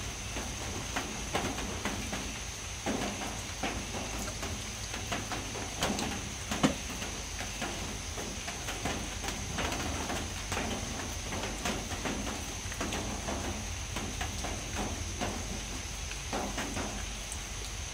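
Irregular light knocks and clatter of a bamboo sticky-rice steaming basket and its pot being handled over a steady hiss, with one sharper knock about six and a half seconds in.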